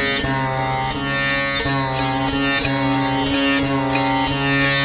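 Background music: a stringed-instrument melody over a steady low drone note.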